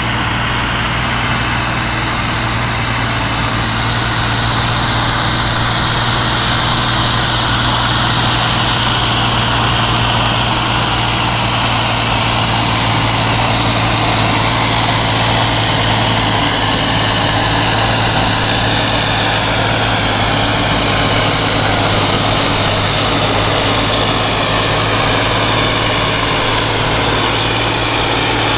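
Kirovets K-700-series tractor's turbocharged diesel engine running hard under full load while dragging a weight-transfer pulling sled. It is loud and steady, with a high whine that slowly drops in pitch through the pull.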